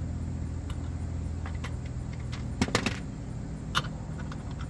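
A few short metallic clinks of a socket knocking against the motor mount bolt as it is fitted by hand, a small cluster a little past halfway and one more near the end, over a steady low hum.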